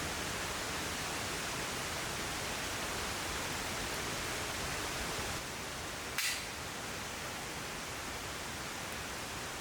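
Steady rush of a river, an even hiss of running water, with one short sharp click about six seconds in.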